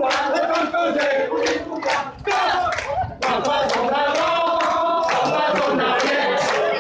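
A group of voices singing together with handclapping on a steady beat, about two to three claps a second; the singing dips briefly two to three seconds in.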